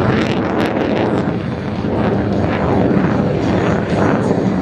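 Engine noise of an F-16C fighter jet climbing steeply away high overhead: a loud, steady rumble with a rough, crackling edge.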